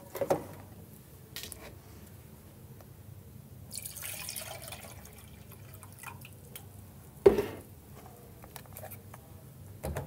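Water poured from a plastic pitcher into the clear plastic container of an espresso machine's milk carafe, running for about three seconds. A single sharp knock follows about seven seconds in, the loudest sound here.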